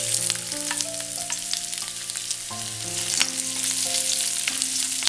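Chopped ginger sizzling in hot vegetable oil in an aluminium kadai, stirred with a spatula that clicks and scrapes against the pan now and then.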